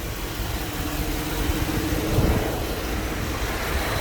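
2008 GMC Yukon's 5.3-litre V8 running unevenly with a steady hum over it. It is misfiring on cylinders 2, 4, 6 and 8, with misfire codes logged for all four.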